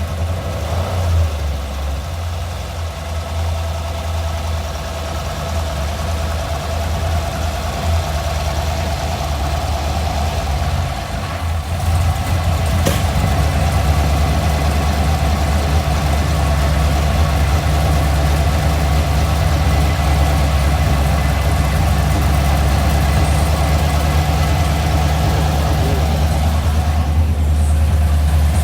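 Engine running at a steady idle without revving up, a sign of the fault of having no throttle response. It gets a little louder about twelve seconds in and then holds steady.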